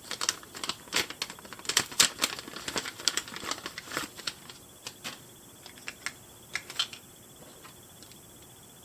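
Doll packaging being handled: a quick run of sharp clicks, taps and light rustles over the first five seconds, thinning to a few scattered taps by about seven seconds in.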